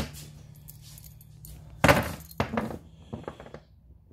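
A loose steel chainsaw chain being handled and laid down, its links rattling and clinking: a sudden loud clatter about two seconds in, then several lighter clinks.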